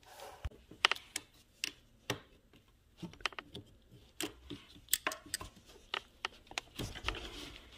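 Irregular clicks and small knocks of pliers squeezing a spring hose clamp and working a rubber hose off its fitting, the loudest click about a second in.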